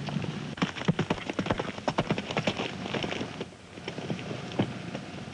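Horse galloping: a rapid, uneven clatter of hoofbeats that thins out about three and a half seconds in.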